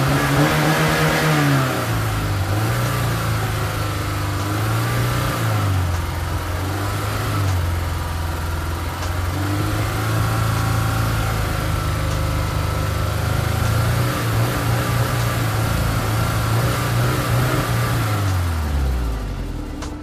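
Honda S2000's four-cylinder engine being revved, its pitch climbing and dropping again every couple of seconds. Near the end the revs fall steeply away.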